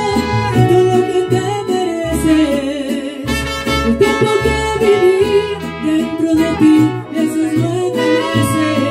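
Mariachi band playing an instrumental passage between sung verses: a violin melody over strummed guitars and a low plucked bass line.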